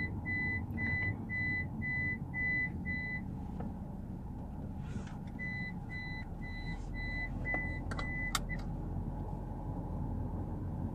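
Road noise inside a moving van's cabin, with a short high electronic beep repeating about two and a half times a second. The beeping stops about three seconds in and comes back for about three seconds past the middle.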